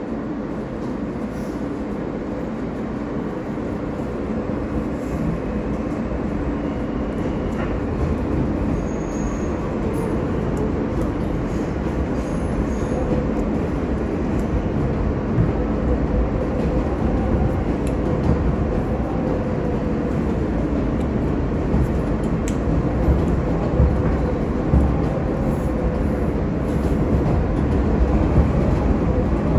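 R160A subway train running between stations, heard from inside the car: a steady rumble of wheels on rail with an even hum at one pitch and a few sharp clicks. It gets slowly louder.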